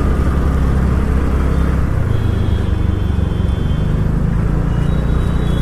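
A TVS Ntorq 125 scooter at riding speed in traffic: a steady rush of engine, wind and road noise.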